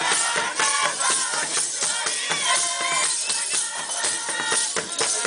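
Rwandan traditional drums beaten in a fast, dense rhythm, with voices singing over them.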